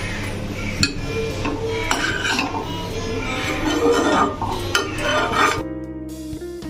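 Cutlery scraping and clinking against dishes, with scattered sharp clinks over faint background music. About five and a half seconds in, the clatter stops and plucked guitar music takes over.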